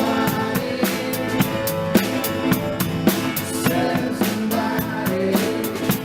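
A band playing an instrumental passage: a drum kit keeps a steady beat with snare and bass drum under sustained chords from pitched instruments.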